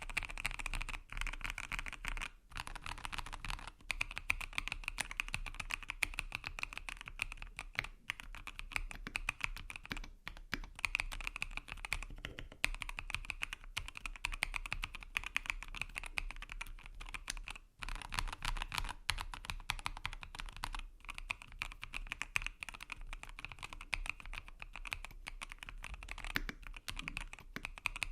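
Continuous fast typing on a custom 65% mechanical keyboard, a FinalKey Origin65 with lubed Wuque Studio Morandi switches, an FR4 plate and MDA keycaps: dense keystroke clacks with a few brief pauses. The builder places the sound between creamy and thocky.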